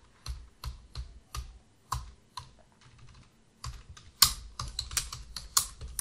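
Computer keyboard being typed on: a few spaced keystrokes in the first half, then a quicker, louder run of typing from about three and a half seconds in.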